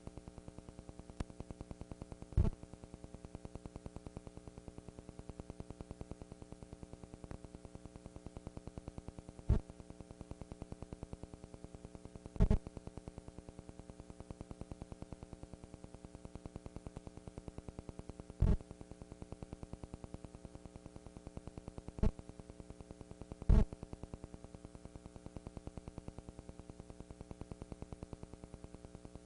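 Steady electrical hum and buzz on an old video recording, broken by about six sharp hits at uneven intervals.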